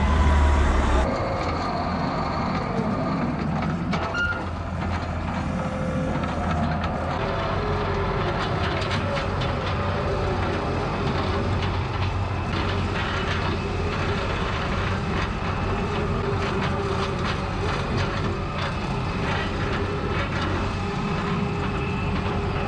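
Heavy farm machinery running steadily: a low engine hum with wavering whines and light rattles. The hum is louder in the first second, then drops and holds steady.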